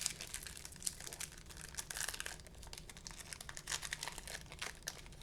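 Crinkling and rustling as trading cards and their plastic pack wrappers are handled: irregular small crackles and clicks, busiest about two seconds in.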